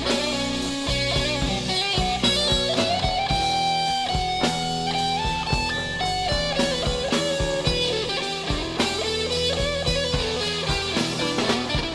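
Instrumental passage of a rock song played from a vinyl record: an electric guitar holds and bends long melodic notes over bass and a steady drum beat, with no singing.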